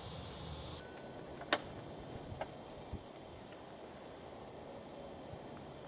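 Steady chirring of insects in the background, with one sharp click about a second and a half in and two fainter ticks soon after.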